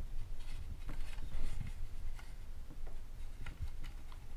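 Handling noise from a sensor casing panel being turned in the hands: scattered small clicks and taps over a low steady hum.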